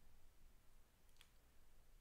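Near silence: room tone with a faint hum, and one faint click about a second in.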